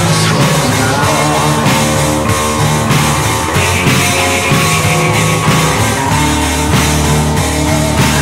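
Post-punk rock song: guitar and drum kit playing to a steady beat, with a brighter, ringing guitar part from about three and a half seconds in to about five and a half.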